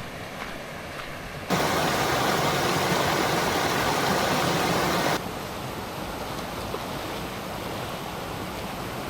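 Gorge creek and waterfall water rushing steadily. A much louder, closer rush starts abruptly about a second and a half in and cuts off abruptly a few seconds later, giving way to a softer steady rush.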